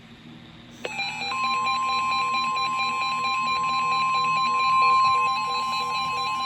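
NOAA weather radio receivers going off: a steady 1050 Hz warning alarm tone starts about a second in, layered with pulsing electronic alert beeps. The tone signals that a weather warning is about to be read.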